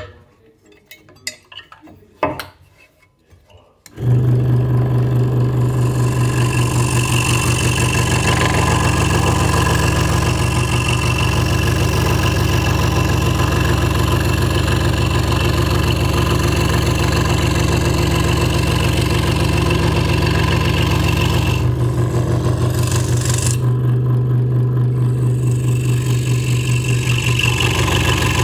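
A few faint clicks, then about four seconds in a Hegner Multicut 2S scroll saw starts and runs steadily, its blade stroking rapidly with a low hum while it cuts through stacked wood. The cutting sound eases for a few seconds about two thirds of the way through.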